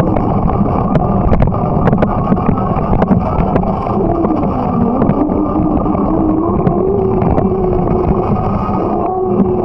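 A bicycle in motion: a steady rumble of tyres and wind, a wavering hum that rises and falls, and frequent small rattling clicks.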